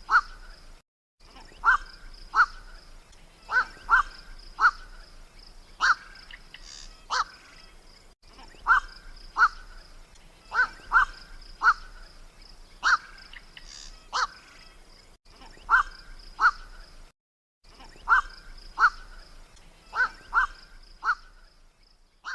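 Black-crowned night heron (kowak-malam) calls from a lure-call recording: short harsh 'kwok' notes, singly or in quick pairs, every second or two, over a steady high-pitched tone.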